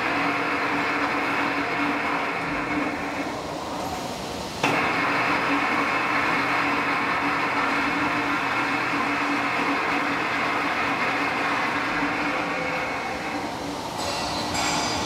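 A W11-10X3000 mechanical three-roller plate rolling machine runs, its gearbox driving the bottom rolls as a steel plate is bent between them: a steady mechanical hum with a low steady tone. About three seconds in the sound thins out, then a sharp clack at about four and a half seconds brings it back to full level. It thins again near the end.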